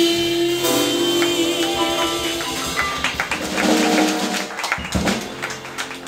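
Jazz quartet's closing held chord of piano, double bass and cymbal wash, ringing out over a few seconds as the song ends with a final hit near the end. Scattered clapping begins just before the close.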